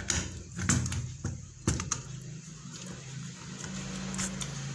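Screwdriver tightening the mounting screw of a modular wall switch: a few light clicks and scrapes, the sharpest about a second and two seconds in, over a steady low hum.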